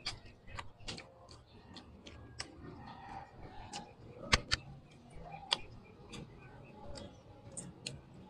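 Close-up eating sounds: irregular lip smacks and chewing clicks as rice is eaten by hand, with a sharp double click a little past halfway.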